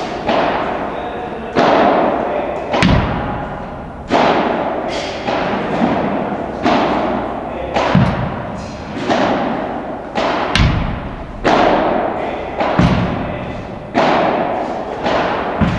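Padel balls struck by rackets and bouncing on the court in a drill of feeds and returns. Sharp pops come about one or two a second, each ringing out in a long echo of the large indoor hall.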